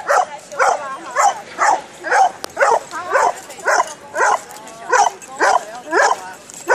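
Old English Sheepdog barking over and over in short, sharp barks, about two a second, keeping a steady rhythm.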